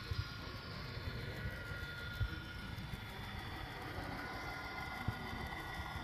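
Steady hall noise with a faint, high, steady whine from model trains running on the layouts.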